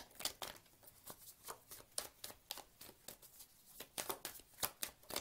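Deck of tarot cards being shuffled by hand: a quick, irregular run of crisp card clicks and slaps.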